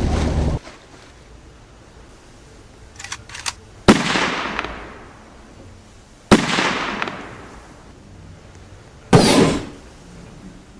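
A series of loud sound-effect bangs: two sharp cracks a couple of seconds apart, each trailing off in a long fading rush of noise, then a shorter burst of crackling noise near the end.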